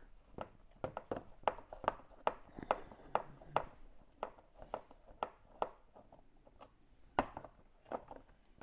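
Irregular sharp clicks and taps of hard plastic, about two or three a second, as a hand works at the headlight adjuster in the plastic rear housing of a Range Rover L405 Valeo headlamp. The clicks thin out about halfway through, with one louder click near the end.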